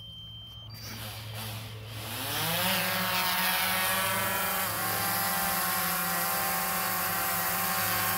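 DJI Phantom 3 Professional quadcopter's four electric motors and propellers spinning up. After a brief beep near the start, the whine rises in pitch about two seconds in, then holds a steady pitch as the drone lifts off and hovers low.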